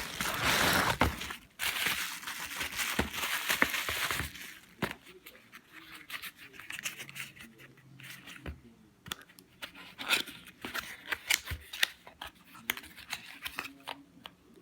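Plastic and paper packaging being torn and crinkled open by hand for about four seconds, then a quieter run of short, sharp clicks and rustles as the package is worked open.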